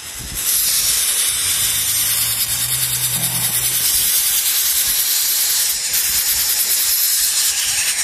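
Coucal nestlings hissing loudly and steadily as they beg with open mouths for food. The hiss starts abruptly about half a second in.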